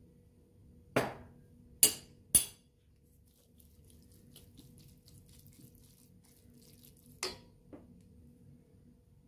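Three sharp clinks of a metal spoon and a drinking glass being set down, followed by a wooden spatula stirring diced vegetables in a stainless steel bowl with a soft scraping rustle. A lighter clink comes about seven seconds in.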